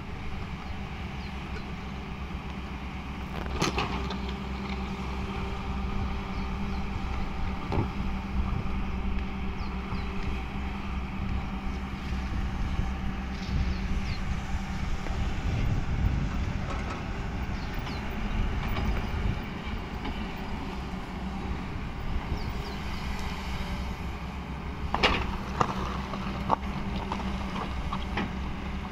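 Tracked excavator's diesel engine running steadily while it digs, with a few sharp knocks from the bucket and arm, several of them close together near the end.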